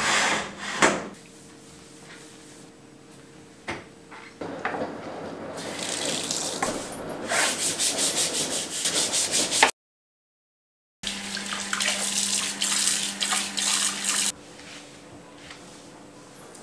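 Stiff brush scrubbing a soapy black kitchen sink basin in quick, rhythmic back-and-forth strokes, with water in the sink. The scrubbing breaks off briefly about ten seconds in, resumes, then stops.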